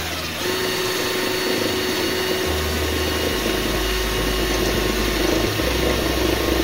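Cordless drill running a step drill bit through a truck's fender panel, with a steady motor whine over the noise of the bit cutting.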